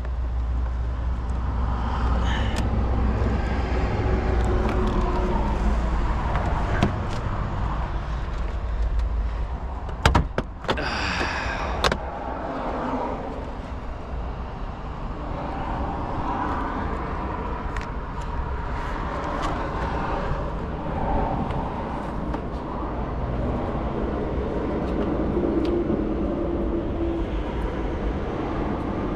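Hands working on wiring and trim in a car's cargo area, with a cluster of sharp clicks and a short rattle about ten to twelve seconds in. A steady low rumble runs underneath.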